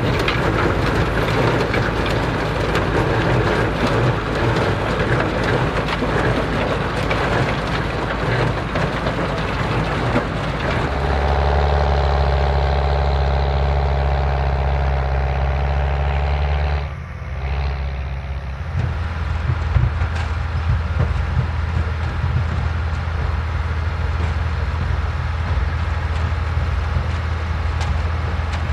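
Vintage tractor engines running steadily in the field. About eleven seconds in, the engine note changes to a deeper, stronger hum, dips briefly a few seconds later, then settles into a new steady note.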